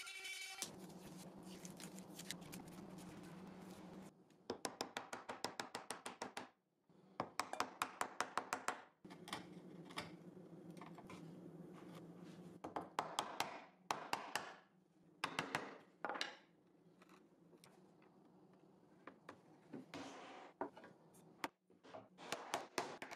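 A router's whine cuts off in the first second. Then come several bursts of quick, evenly spaced mallet taps, about five a second, as a chisel chops out bowtie mortises and the wooden bowtie inlays are driven into them.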